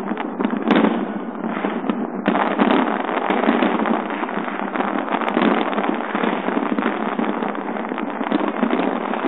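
Aerial fireworks display at full barrage: many shells bursting at once in a continuous, dense run of booms and crackles with no pause, recorded on a phone.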